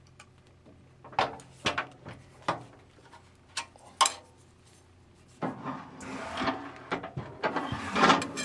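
Clamps and a 5052 aluminum sheet piece being handled on a hand sheet-metal bending brake. About half a dozen sharp clicks and knocks come in the first four seconds. From about five and a half seconds in there is a longer rubbing, scraping sound with knocks that grows louder near the end.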